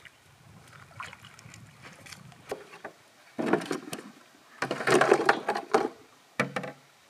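Freshwater mussel shells clattering and knocking as they are tipped out of a plastic bucket onto a wooden board, in two loud bursts from about halfway through, then a single short knock near the end.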